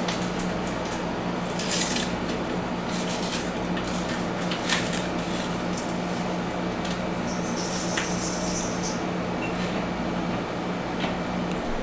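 Scattered clicks and light clinks of glass and metal being handled over a steady low hum, with a short hiss about seven and a half seconds in.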